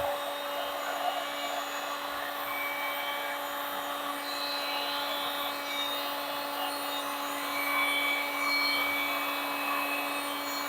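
Heat gun running steadily, a constant fan whir with a steady hum, blowing over poured epoxy resin.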